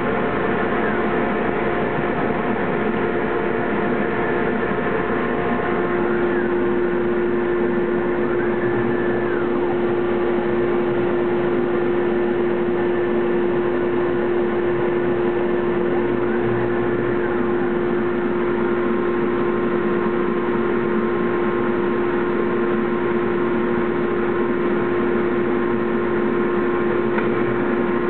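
Automated glass-cutting table running: a steady mechanical hum with a held tone, and now and then a short whine rising and falling in pitch as its cutting bridge travels over the glass sheet.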